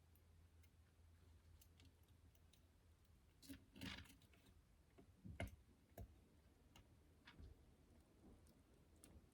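Faint scattered clicks and light taps of small parts and tools being handled, with a louder clatter about four seconds in and two sharper clicks shortly after, over a low steady hum.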